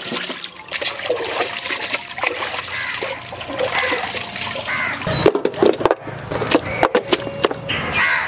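Water splashing and sloshing in a metal pot as raw chicken drumsticks are swished and rubbed clean by hand, with sharp splashes throughout.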